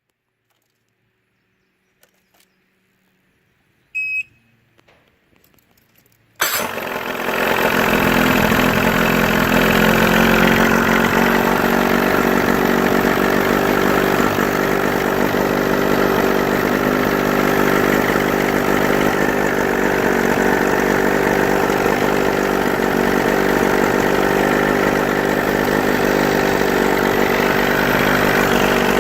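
Mid-1980s Johnson 35 two-stroke outboard motor: a few faint clicks and a sharp clack about four seconds in, then the engine fires about six seconds in, catches at once and runs steadily. It starts readily, the test of whether cleaning a bad ignition harness connection has cured its hard starting when warm.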